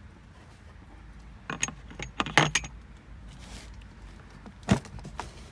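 Metal hand tools clinking and rattling as they are handled and put away, a cluster of sharp metallic clinks about one and a half to two and a half seconds in, then a single knock near the end.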